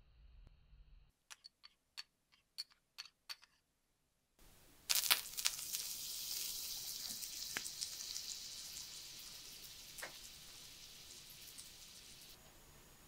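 A few light kitchen clicks and taps, then food sizzling in a hot pan: the hiss starts suddenly about halfway through and slowly dies down.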